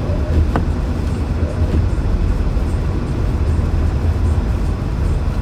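Steady low rumble of a car driving on a snowy highway, heard from inside the cabin, with a short click about half a second in.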